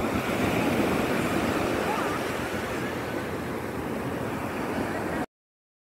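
Sea surf breaking and washing up onto a sandy beach, a steady rushing wash of waves. It cuts off suddenly about five seconds in.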